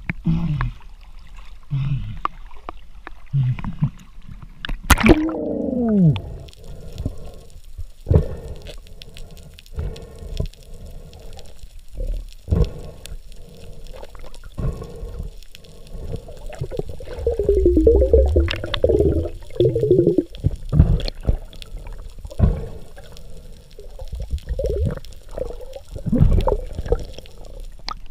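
Muffled underwater sound picked up through a diving camera: bubbles gurgling and water moving in irregular bursts, with a falling pitched glide about five seconds in and a louder bubbly stretch with low rumble near the middle.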